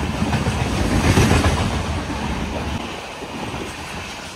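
An express train with LHB coaches passing close on the next track, heard from the open doorway of a moving train: a rush of wheels and air that is loudest about a second in, then fades as the last coach goes by.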